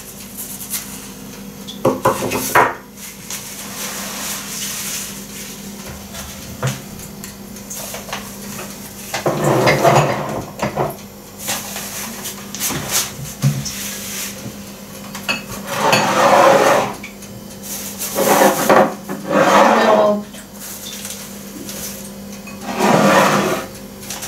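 Dishes and kitchenware clattering and knocking in several short bursts as things are rummaged through and moved about, over a faint steady hum.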